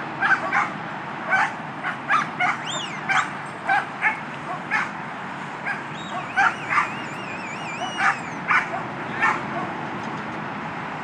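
A dog barking in short, sharp barks, repeated irregularly, sometimes two or three in quick succession, over a steady hum of freeway traffic.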